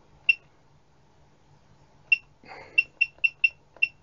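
Short, high electronic keypad beeps from a handheld LB02A voltage/current calibrator as its buttons are pressed to step its output value. There is one beep, another about two seconds later, then a quick run of five.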